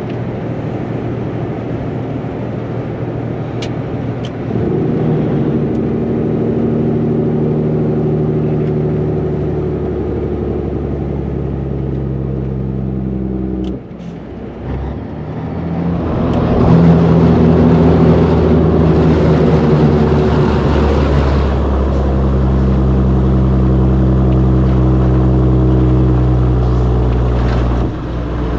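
Caterpillar 3406B diesel engine of a Peterbilt 362 cabover truck running under way at road speed, a steady low engine drone. It steps louder about four seconds in, dips briefly midway, then swells with a rushing noise for several seconds before settling back to a steady note.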